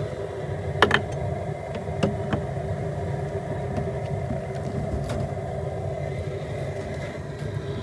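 Steady low mechanical rumble, with a few sharp knocks, the loudest about a second in.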